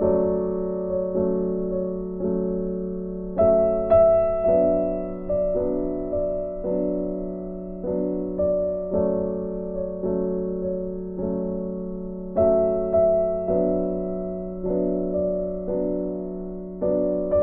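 Background music: slow, gentle piano, with notes struck about once a second and left to fade.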